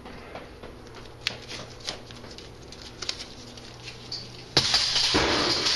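A hanging star-shaped decoration and its ceiling hook falling onto a tile floor: a few light clicks, then about four and a half seconds in a sudden crackling crash lasting about a second.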